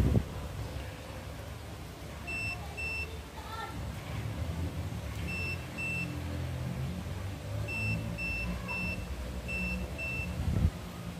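Short electronic beeps at one high pitch, coming in groups of two or three, over a low steady hum from the inverter and transformer setup under test. A thump comes at the very start and another near the end.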